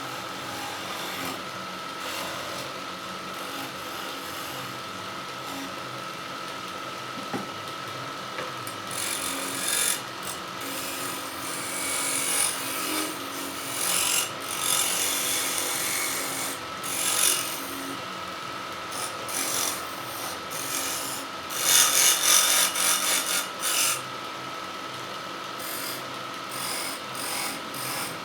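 Wood lathe running with a steady whine. A turning tool scrapes against the spinning wood in uneven passes that come and go from about a third of the way in, loudest about four-fifths of the way through.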